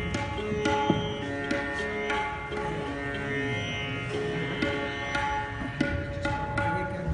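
Sitar being played: plucked notes that ring on over a held tone, with occasional tabla strokes.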